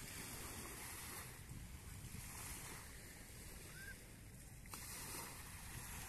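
Faint wind buffeting the microphone over small sea waves washing in, the hiss of the water swelling and easing every second or two.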